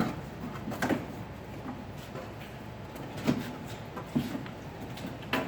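Plastic fender liner being worked loose and pulled out of a truck's wheel well: a few separate knocks and scrapes of stiff plastic against the body, spread out over several seconds.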